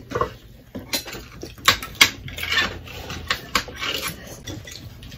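Chopsticks and utensils clinking against plates and dishes at a shared meal, a scatter of short sharp clicks at uneven intervals.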